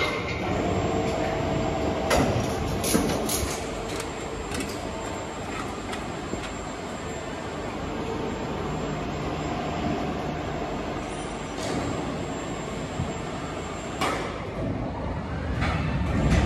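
Crane at work setting a heavy transformer down onto a truck's bed: a steady machine hum with a tone in the first few seconds, broken by several sharp metallic knocks and clanks.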